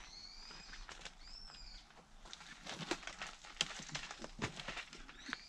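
A bird gives a short arched whistle twice in the first two seconds. Then comes a run of scuffs and taps from a boulderer's shoes and hands on the rock, with one sharp click about three and a half seconds in.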